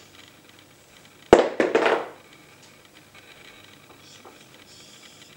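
A sudden knock followed by a brief crackling rustle lasting under a second: clear plastic wrap stretched across a doorway being bumped and crinkled by a Samoyed dog.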